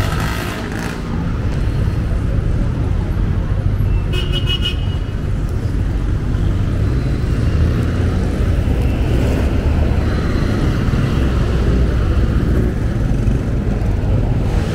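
Road traffic running steadily: the low rumble of cars, buses and motorcycles passing and idling. A short high-pitched beep comes about four seconds in.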